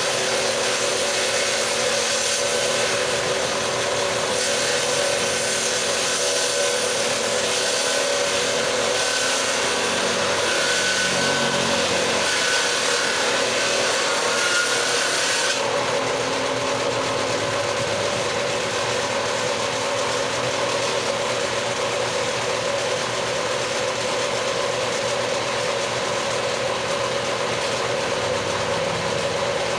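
An electric power tool runs steadily with a constant motor whine while it cuts into a wooden door-jamb board. The harsher cutting noise eases about halfway through while the motor keeps running.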